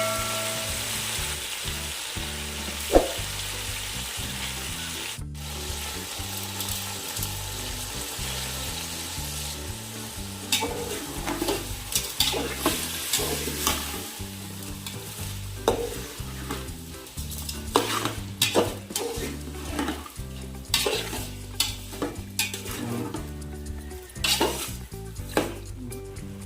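Food frying in hot oil in a pan, with a steady sizzle. From about ten seconds in it is stirred with a spatula, and the spatula scrapes the pan in quick, repeated strokes.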